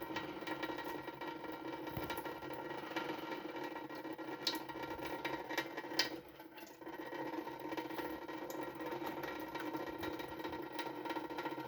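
Tap water running steadily into a sink or basin, with small splashes and clicks, dropping briefly about six seconds in.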